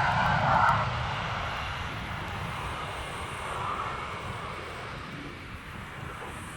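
A large cargo aircraft's engines, loudest in the first second, then fading away as the plane passes.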